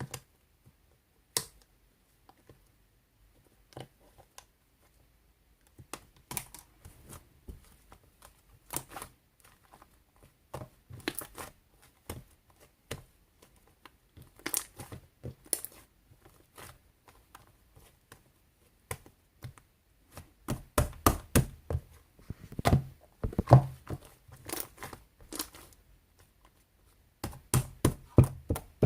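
Intermittent crinkling, rustling and tapping, like paper or plastic being handled at close range. The sounds are sparse at first and become busier and louder in the last third, with a short pause near the end.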